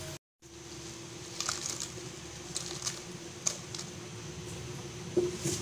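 Light scattered clicks and crackles of crisp fried potato chips shifting in a glass bowl, over a faint steady hum. The sound drops out briefly just after the start.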